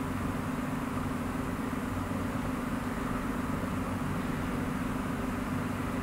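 Steady low hum with a background hiss and no clicks or changes, the constant noise of the recording setup.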